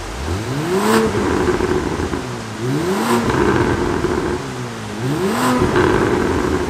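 Porsche 971 Panamera 4 twin-turbo V6 free-revving through a Fi Exhaust full valvetronic system with the exhaust valves closed: three quick blips, each rising and falling in pitch, with a brief sharp noise at the peak of each.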